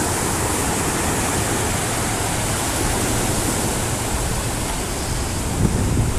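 Ocean surf breaking and washing up the beach, a steady rush of noise, with wind buffeting the microphone.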